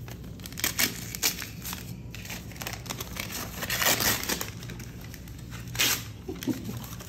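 Paper gift wrap around a book being crinkled and torn open by hand, in short irregular rustling bursts, the loudest about four seconds in and just before six seconds.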